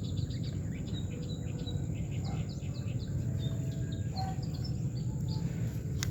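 Small birds chirping outdoors: many quick, high chirps and short calls in a rapid stream. Underneath is a steady low rumble and a thin, steady high-pitched tone.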